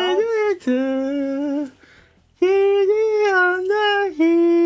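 A man singing a song tune with his mouth held open by a mouth-opener, so the words come out as long open vowel sounds. A few held notes, a short pause about two seconds in, then a long held note.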